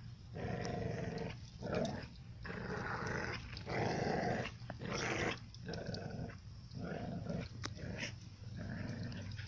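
Dogs growling in play as they wrestle, in rough bursts about one a second.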